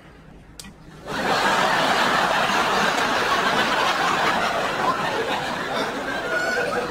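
Studio audience laughter breaks out suddenly about a second in and carries on as sustained, loud laughing and chuckling. Just before it comes a single short click.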